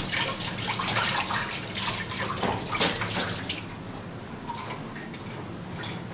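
Water running from a kitchen spray tap into a stainless steel pot, with clinks of steel utensils being rinsed. The water stops a little over halfway through, leaving only faint handling sounds.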